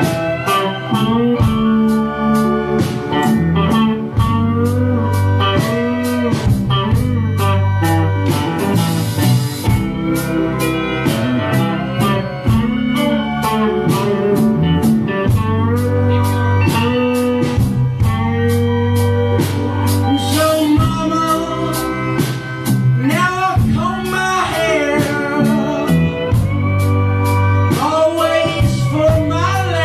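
Live rock band playing a bluesy song: electric guitars and bass over a steady drumbeat, with keyboard, and a voice singing in the later part.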